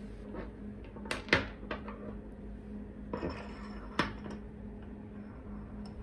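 Small metal clicks and clinks from handling a metal coaxial sample holder and a thin metal tool, in a scatter with the sharpest about a second in and at four seconds, over a steady low hum.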